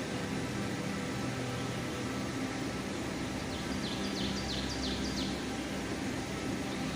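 Steady outdoor noise with a low hum, and a quick run of about half a dozen high, falling bird chirps in the middle.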